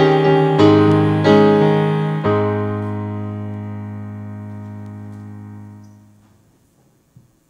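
Grand piano playing a few chords that end on a final low chord, left to ring and die away until it fades out about six seconds in.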